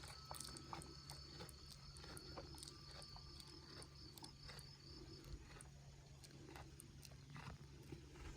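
Quiet outdoor ambience: scattered faint clicks over a steady low hum, with a high, even trill that stops about five seconds in.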